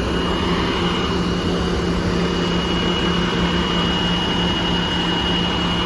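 New Flyer XDE60 articulated diesel-electric hybrid bus running steadily: an even low engine rumble with a constant hum and a thin, steady high-pitched whine over it.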